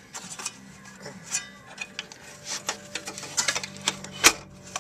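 Irregular clicks, knocks and clanks of metal parts being handled during the assembly of a Nelson horse waterer, with the loudest knock a little after four seconds in.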